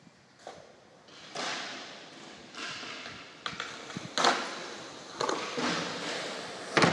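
Skateboard rolling on a concrete floor, wheels running with a noisy rumble and several sharp clacks of the board, in a large metal-walled warehouse. The loudest clack comes near the end.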